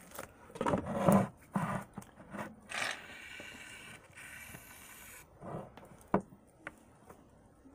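Close handling noise: an arm rubbing and scraping over the phone's microphone, with a few knocks against it near the end.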